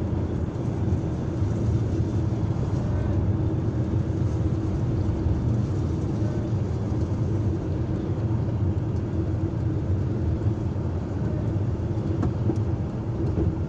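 Large diesel engine running steadily with a low, even rumble and a held hum.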